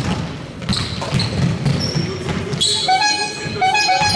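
Basketball game sounds in a sports hall: a ball bouncing on the court and sneakers squeaking on the floor. About three seconds in, music with steady held notes starts over them.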